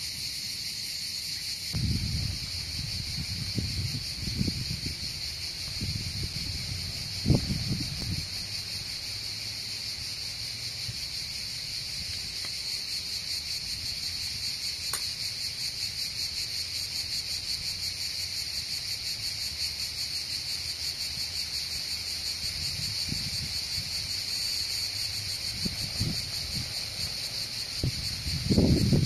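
Steady high-pitched chirring of insects, with a few soft low bumps, the loudest cluster near the end.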